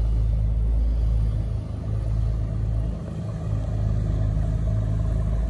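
A steady low rumble that dips briefly about a second and a half in and again about three seconds in.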